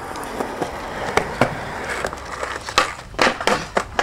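Skateboard wheels rolling over a concrete sidewalk with a steady grinding hiss, broken by several sharp board clacks, most of them bunched together near the end.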